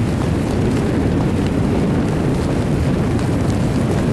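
Steady low rumbling noise of a dog sled running over a snowy track.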